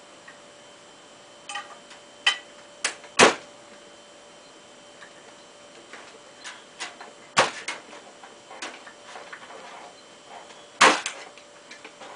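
Hand pop-rivet tool being squeezed to set a 5/32 aluminum rivet in an aluminum window frame: a series of sharp metal clicks and snaps at irregular intervals, the loudest about three seconds in and again near the end.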